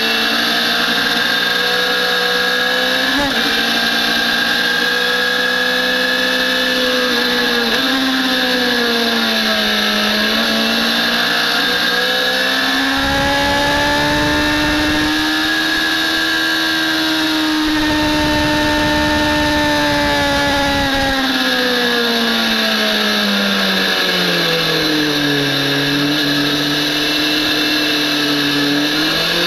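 Onboard sound of a BMW S1000RR sport bike's inline-four engine at track speed, its note rising and falling with the throttle through the corners. It drops low near the end, then climbs again. A low rumble runs through the middle.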